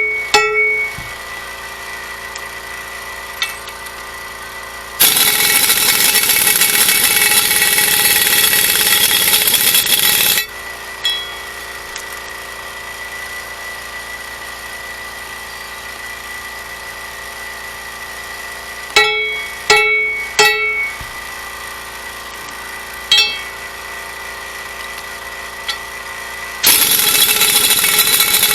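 Air impact wrench hammering for about five seconds as it runs a lug nut down to pull a wheel stud into the axle hub. Later there are three quick ringing hammer blows on the stud and a fourth a few seconds after; the ding tells whether the stud has seated fully. The impact wrench starts again near the end.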